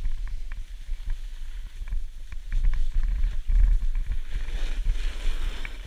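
Wind buffeting an action camera's microphone as it moves downhill on a snowboarder's pole, a heavy uneven rumble, with the hiss of the snowboard sliding over packed snow growing louder in the second half.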